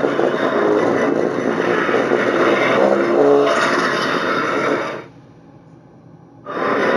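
Godzilla roar sound effect: a long, rough, grinding roar that breaks off about five seconds in, then a new roar starts near the end.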